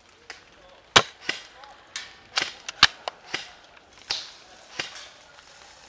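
Airsoft guns firing on a range: a run of sharp, irregular pops, about ten in six seconds, the loudest about a second in and just before three seconds.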